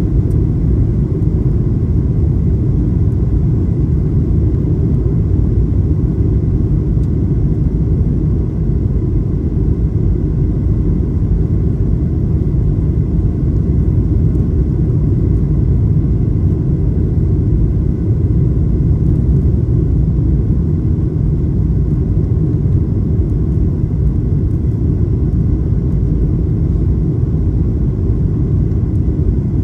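Steady low rumble inside the cabin of a Boeing 737-800 on short final approach: its CFM56-7B engines and the airflow over the extended landing gear and flaps, with a faint steady high whine.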